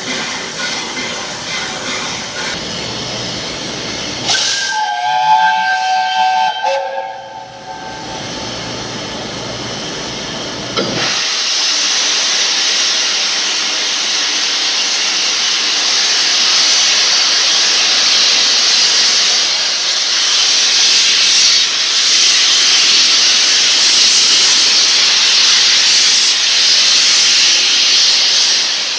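A steam locomotive's whistle sounds briefly about five seconds in, several tones together. From about eleven seconds a loud, steady hiss of escaping steam from the locomotive, LNER Peppercorn A1 Pacific No 60163 Tornado, takes over.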